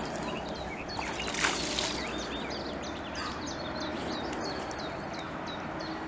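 Small birds chirping, with many short, high calls repeating one after another over a steady outdoor background, and a brief rushing noise about a second and a half in.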